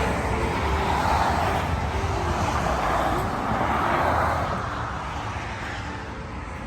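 Road traffic rushing past in a steady wash of tyre and engine noise, swelling twice and easing off near the end, with faint music underneath.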